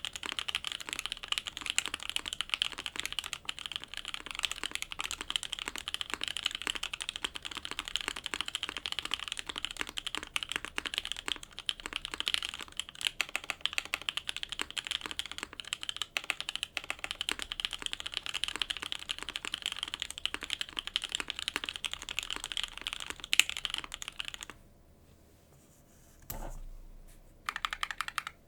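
Fast, continuous typing on an O-ring-mounted custom mechanical keyboard with lubed linear switches on a polypropylene plate. Near the end the keystrokes stop for about two seconds, broken by one low thump, then the typing picks up again.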